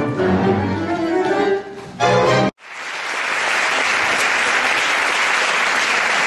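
A tango orchestra of bandoneons, strings and piano plays its closing bars and ends on a short, loud final chord about two and a half seconds in. After a sudden break, the audience applauds steadily.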